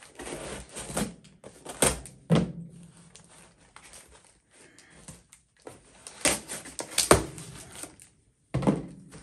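Utility knife cutting packing tape on a cardboard box, with cardboard scraping and rustling and a few sharp knocks as the flaps are handled.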